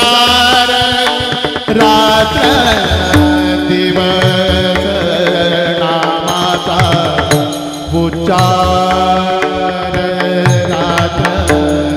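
Warkari kirtan music: small brass hand cymbals (taal) clashing in a steady rhythm over mridang drum strokes, under a held, gliding melody line.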